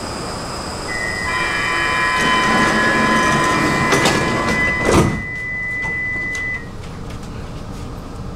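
Stockholm metro train running with a steady high whine. From about a second in, several steady high squealing tones sound together, typical of brake or wheel squeal as the train slows. A loud clunk comes about five seconds in, and the last tone cuts off about a second and a half later.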